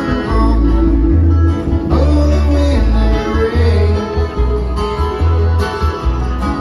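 Live bluegrass band playing over a loud outdoor PA, acoustic guitar picking over a heavy bass line that changes notes every second or so.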